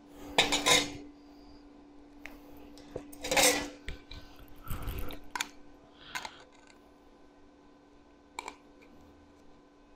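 Metal tools clinking and clattering on a steel workbench as they are set down and picked up, loudest just after the start and again about three seconds in, then a few short sharp snips of tin snips cutting into a thin sheet-steel part. A faint steady hum runs underneath.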